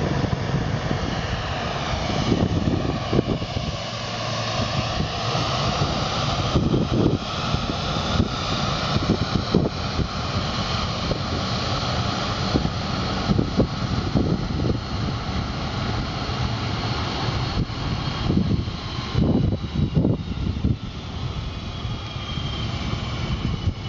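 Jet airliner engines running across an airfield: a steady roar with high whining tones that slowly drift in pitch. Irregular low gusts of wind noise on the microphone come and go throughout.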